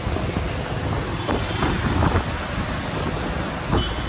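Wind buffeting the microphone on a moving motorbike, a loud gusting rush with the bike and street traffic underneath.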